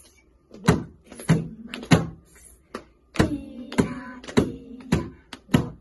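Hands clapping in a steady rhythm, about one clap every 0.6 seconds, with a short break around the middle, while a voice sings along between the claps.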